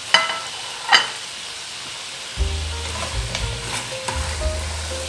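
Pork ribs sizzling in rendered oil and bagoong in a nonstick pot as a metal ladle stirs them, clanking sharply against the pot twice in the first second. A low steady hum joins about halfway through.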